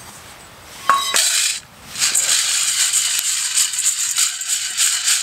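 Freshly roasted coffee beans tipped from a cast iron pan into a metal colander with a clatter about a second in. Then they are shaken and tossed in the colander, a fast continuous rattle of beans against metal, which knocks off the chaff and cools the beans.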